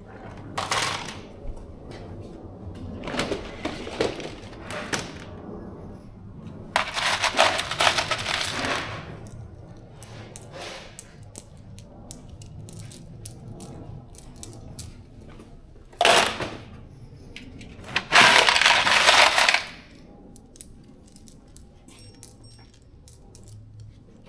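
Loose steel bolts and nuts clinking and clattering as they are handled and tipped into a fastener kit's compartments: scattered single clinks between several dense rattling pours, the loudest two lasting a second or two each.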